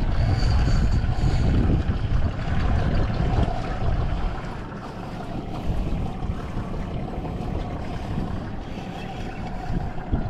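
Wind buffeting the microphone over the sound of water and a boat at sea, with a steady hum underneath. The buffeting is heaviest in the first four seconds, then eases.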